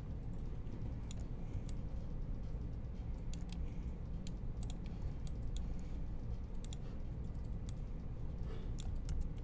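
Computer keyboard and mouse clicking: scattered, irregular short clicks as keys and buttons are pressed, over a steady low hum.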